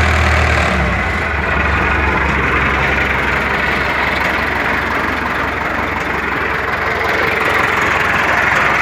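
MTZ-80 tractor's four-cylinder diesel idling, with a fast, even knock from the worn intermediate driveshaft support; the knock goes away when the engine is given a little throttle.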